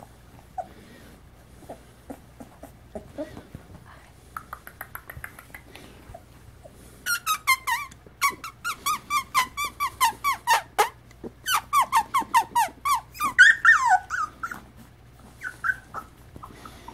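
Young beagle puppies crying: a few faint squeaks at first, then from about seven seconds in a long run of short, high yips and whines, several a second, loudest a little before the end, with a few last cries near the end.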